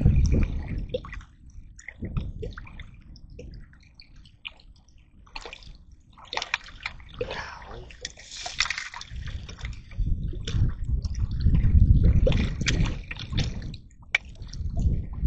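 Water splashing and sloshing in irregular bursts, mixed with scattered knocks and clicks and heavy rumbling handling noise on the microphone, loudest from about ten to fourteen seconds in.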